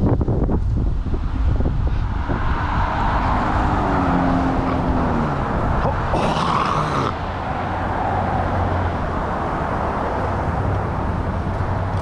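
A car passing by, its engine note slowly dropping in pitch as it goes, over a steady rumble of wind on the microphone. A brief scraping burst about halfway through.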